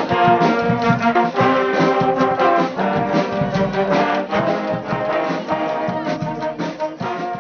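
High-school pep band playing a song, led by brass: trombones and trumpets holding and changing chords in a steady rhythm.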